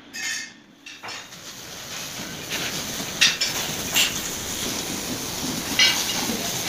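Steel striking steel: several sharp metallic clinks and knocks that ring briefly, over a steady workshop background hiss that gets louder about a second in.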